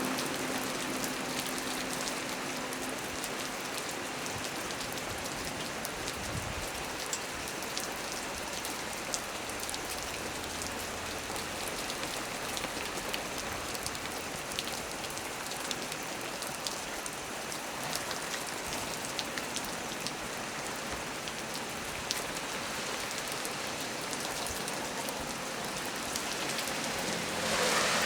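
Heavy rain falling steadily on a small tree, with sharp ticks of single drops through the hiss. The downpour swells briefly near the end.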